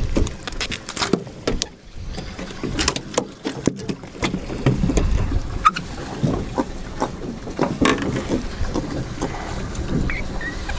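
Deck sounds aboard a small drifting fishing boat: a low, uneven rumble of wind and water against the hull, with scattered clicks and knocks from tackle and the catch being handled on deck.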